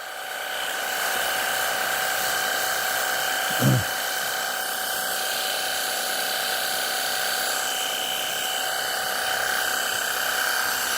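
Battery-powered pressure washer running steadily, its motor and pump giving a high whine over the hiss of the water jet on a tarmac driveway. A short low sound comes about four seconds in.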